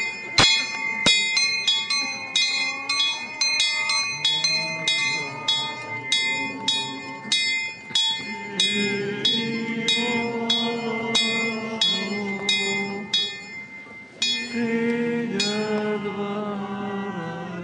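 Small bells in stone bell towers ringing in rapid repeated strikes, several a second, over a lingering ringing hum. From about halfway through, singing in slow held notes comes in under the bells, and the strikes thin out near the end.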